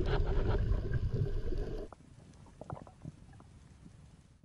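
Underwater sound heard through a camera housing: a low, muffled rumble that drops away suddenly about two seconds in, leaving a quiet underwater background with a few small clicks.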